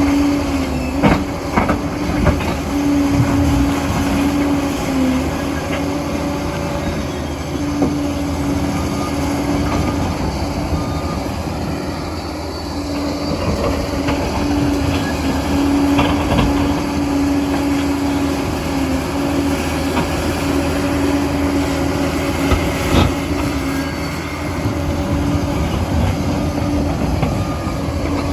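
Liebherr PR 746 crawler dozer working: its diesel engine runs steadily under load with a droning whine that drops out now and then, over track clatter and scattered sharp knocks.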